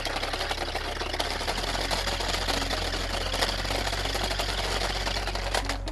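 A Thunder Tumbler remote-control stunt car's small electric motors and gears whirring steadily as it drives and tumbles over concrete.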